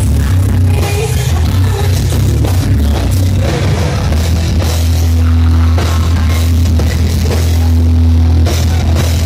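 Live heavy metal band playing loud, with pounding drums and heavy low guitar and bass. A long low note is held from about five seconds in until shortly before the end.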